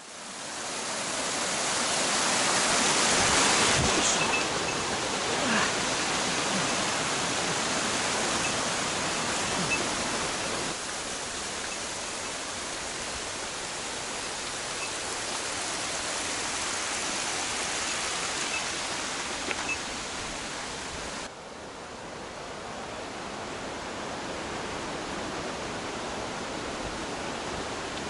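Steady rushing of a mountain stream, an even hiss of running water that becomes a little quieter and duller about three-quarters of the way through.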